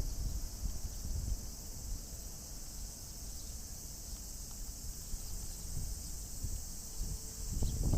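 Steady, high-pitched chorus of cicadas, with a low rumble of wind on the microphone that swells near the end.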